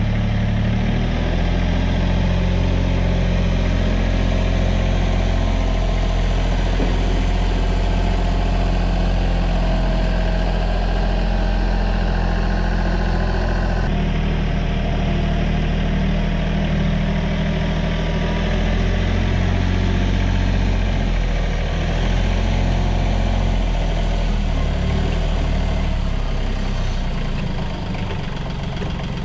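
Branson 2515h compact diesel tractor's engine running steadily, with an abrupt change in the engine sound about halfway through.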